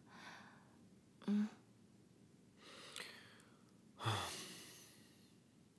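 Soft breaths between two people, with a short murmured "mm" about a second in and a man's breathy sigh about four seconds in, the loudest sound, fading away.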